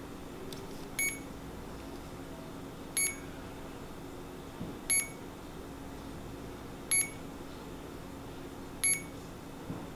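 CADD-Legacy 1 ambulatory infusion pump beeping: five short, identical high beeps about two seconds apart, while the pump steps through its programmed settings after being switched on.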